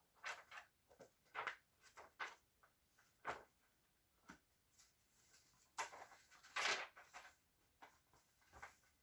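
Bible pages being turned and handled: a string of irregular short paper rustles and soft taps, busiest about two-thirds of the way through.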